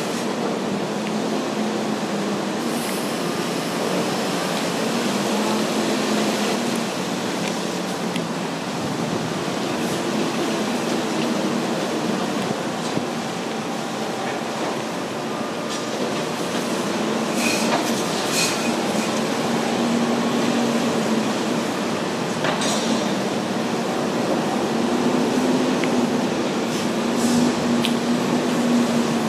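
Heavy construction machinery running steadily: diesel engines and hydraulics make a low hum that swells and fades several times. A few sharp metal clanks come a little past the middle.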